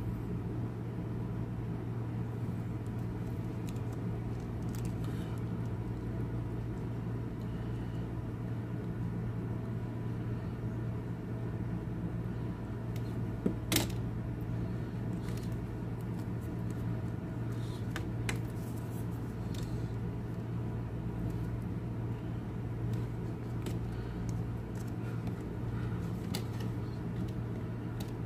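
Steady low background hum throughout, with a few small clicks and taps from a resin watch strap and buckle being handled; the sharpest click comes about halfway through.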